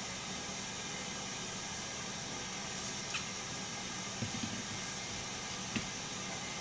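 Steady hiss of room tone with no voices, broken by a few faint light taps: one about three seconds in, a couple just after four seconds and one near the end.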